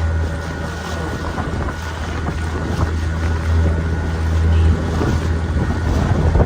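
Motorboat engine running steadily at cruising speed: a low, even hum with a faint whine above it, mixed with wind on the microphone and water rushing past the hull.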